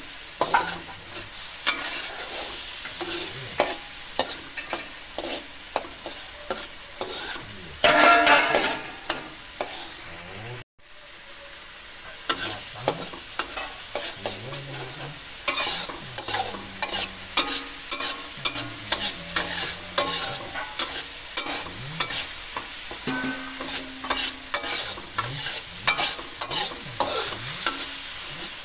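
A spatula scraping and tapping against a metal wok while stirring ground chilli spice paste as it sizzles in hot oil, being sautéed until fragrant. Sharp clicks come several times a second over a steady sizzle. There is a louder burst about eight seconds in and a momentary drop-out just before eleven seconds.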